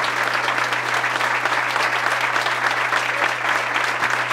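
Audience applauding steadily, with a low steady hum underneath.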